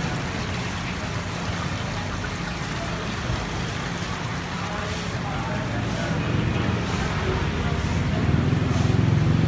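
Road traffic with a heavy vehicle's engine running, getting louder over the last couple of seconds.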